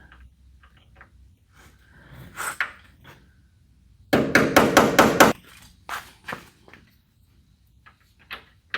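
Hammer tapping a screw extractor into a drilled-out broken bolt: a quick run of about seven sharp metal taps just past the middle, with a few lighter knocks before and after.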